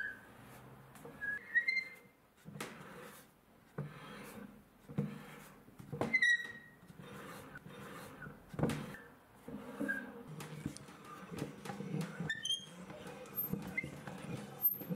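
Rusty threaded height-adjustment screw of an antique piano stool turning in its base, squeaking in short high chirps over a grinding creak, with a few knocks.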